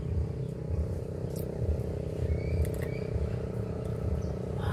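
A steady low rumble with an uneven pulse, with two faint, short high tones about halfway through.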